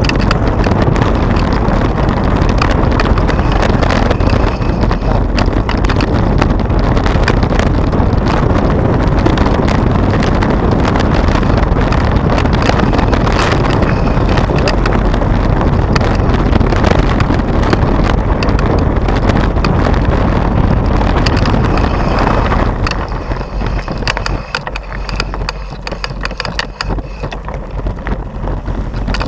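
Mountain bike ridden over a loose gravel track: tyres crunching and the bike rattling, a dense noise full of sharp clicks. It eases off about three-quarters of the way through.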